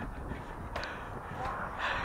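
Wind buffeting the microphone and tyre rumble from a moving bicycle on a road.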